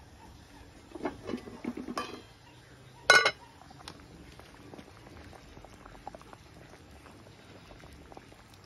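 A spoon stirring and scraping in a pot of soup, then one loud, sharp metallic clank against the pot about three seconds in. After that the soup simmers with a faint bubbling and small ticks.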